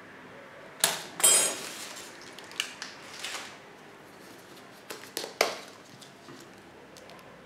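Metal tongs set down with a loud clatter and ringing on the steel ice-cream-roll cold plate about a second in. Then come scattered clicks and taps from handling utensils, and a second loud clatter a little after the middle.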